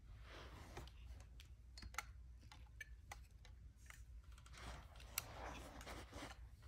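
Faint handling of a plastic articulated dinosaur figure: small clicks as its joints are moved and posed, with soft rustling, and two sharper clicks about two and five seconds in.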